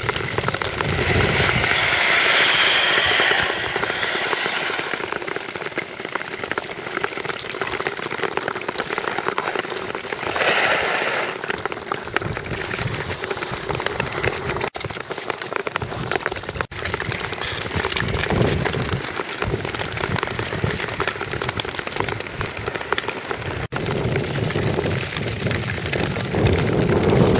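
Long-distance skate blades scraping and hissing over clear black ice, a steady crackly hiss, with louder scrapes about two seconds in and again around ten seconds.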